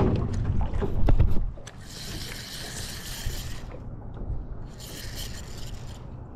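Spinning reel being cranked to bring in a hooked fish, its gears whirring in two spells of a second or two, after a burst of wind on the microphone in the first second or so.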